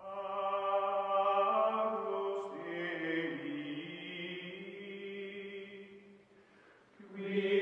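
Outro music of sustained chant-like voices holding long notes, with slow pitch glides. It fades away about six seconds in and swells back a second later.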